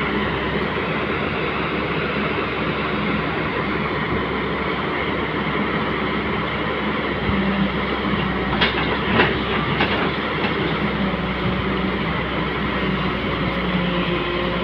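Long-reach hydraulic excavator running steadily, its diesel engine and hydraulics making a continuous drone as the bucket works along the canal bed. A few sharp clanks come about nine to ten seconds in.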